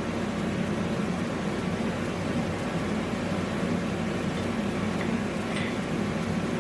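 Steady mechanical running noise with a low hum, unchanging throughout.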